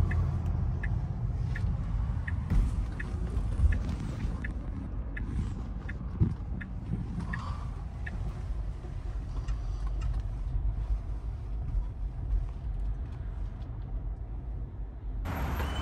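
Low, steady road rumble heard inside a car, with a light tick repeating about every two-thirds of a second through the first half.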